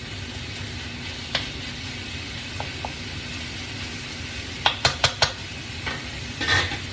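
Chicken and vegetables sizzling in a hot frying pan, with a cooking utensil clicking against the pan as they are stirred: a quick run of four sharp clicks about five seconds in and a scraping clatter near the end.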